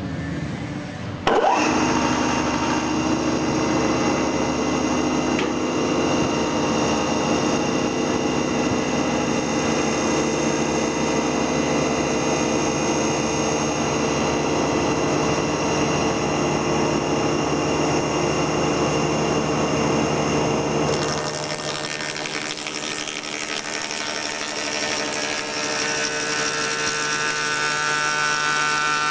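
Electric milling machine for cutting dovetail grooves in logs, running with a steady whine. It comes in sharply about a second in, and the sound changes about two-thirds of the way through, losing its low end, with higher tones toward the end.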